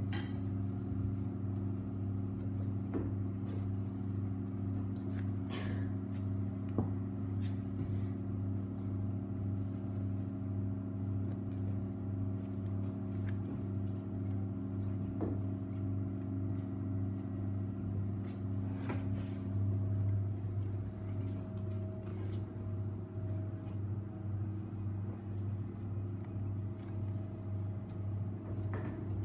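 A steady low machine hum, with scattered light clicks and knocks of a boning knife working along reindeer ribs on a plastic cutting board.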